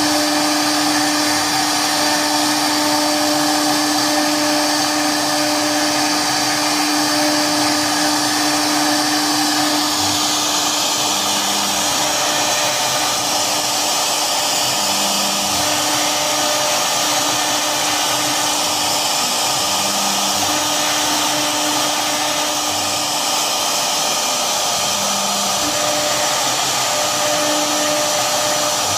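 CNC router spindle running at speed while its bit cuts grooves into an MDF sheet: a steady whine over the hiss of cutting, with the character of the cut changing about ten seconds in.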